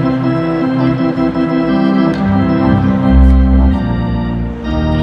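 Arena organ playing live: loud sustained chords that change every second or so, with a deep bass note coming in about three seconds in.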